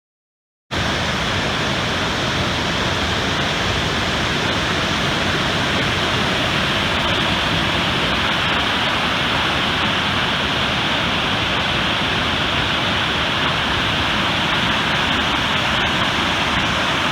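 The Great Falls of the Passaic River: a loud, steady rush of falling water that cuts in suddenly just under a second in.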